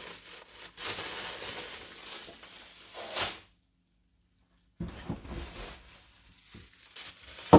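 Plastic food packaging rustling and crinkling as it is handled. The sound drops out to dead silence for about a second midway, then comes back quieter with small clicks and a sharp knock near the end.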